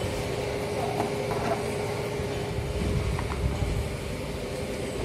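Steady low background rumble with a constant hum, and a few faint clicks as the scooter's rubber floor mat is handled.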